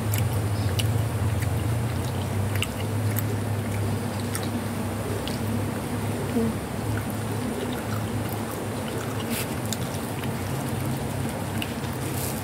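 Several cats eating a cassava snack from a plastic tub: small scattered chewing clicks over a steady low hum.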